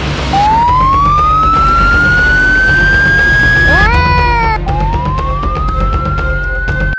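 Siren wailing in slow rising climbs, twice. About four seconds in, the first climb breaks off with a brief swooping tone, and then the second climb starts. A steady low rumble runs underneath.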